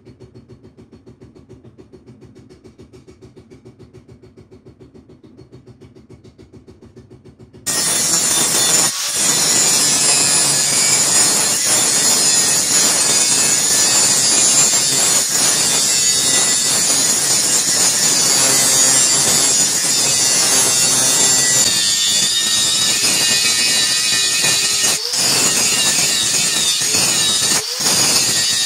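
Power grinder cutting into a steel machete blade: after a quieter rhythmic stretch, loud steady grinding starts abruptly about eight seconds in and carries on, with a few brief breaks as the blade comes off the abrasive.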